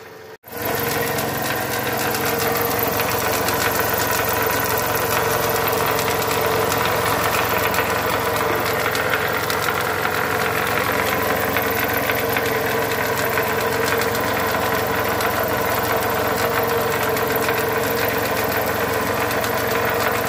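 Toyota Camry 2.4 L 2AZ four-cylinder engine idling with a steady fast knock, the knock the mechanic is trying to trace; the title points to the balance shaft. It starts abruptly about half a second in.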